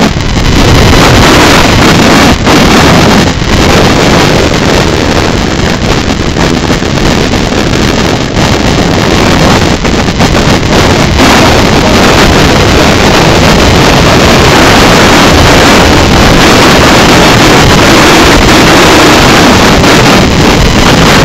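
Loud, steady wind buffeting the microphone on a racing sailboat sailing heeled, with water rushing along the hull underneath.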